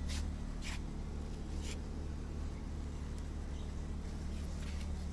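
Steady low hum, with a few brief rustles in the first two seconds.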